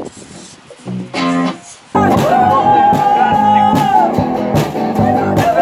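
Live electric guitar music: a few soft low notes, then loud, driving electric guitar starting abruptly about two seconds in.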